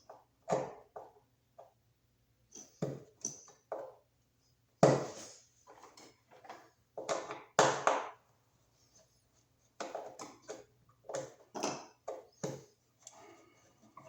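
Irregular clicks, knocks and clatter of hardware being handled as a surface-mount Wiremold electrical box is taken off and swapped for a deeper one, with the loudest knocks about five and eight seconds in.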